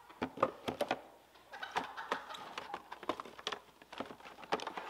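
Plastic bottles and packets knocking, clicking and rustling as a bottle is put into a supply tote and the tote is rummaged through. The clicks come in a quick cluster in the first second, with a rustle in the middle.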